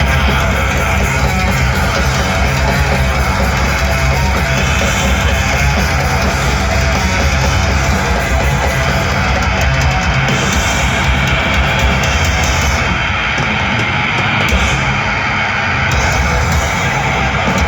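Death metal band playing live: heavily distorted guitars, bass and drums at full volume, without vocals.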